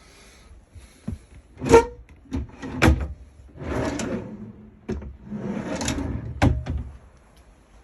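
Caravan drawers and cupboard doors being opened and shut: a series of sharp knocks and clatters, with two longer sliding rushes in the middle.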